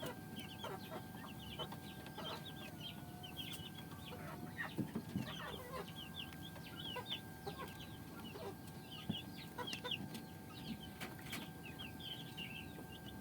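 Chickens clucking and chirping, with many short high calls throughout over a faint steady whine.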